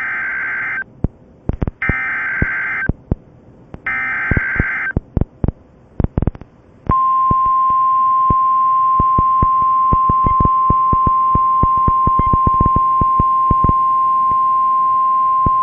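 NOAA Weather Radio emergency alert: three one-second bursts of SAME digital header tones, a second apart, then the steady single-pitch 1050-hertz warning alarm tone held for about nine seconds. Crackling radio static runs underneath throughout.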